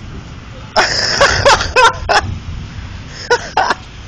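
A person laughing in a quick string of short, breathy bursts about a second in, then two more short bursts near the end, over a steady low rumble.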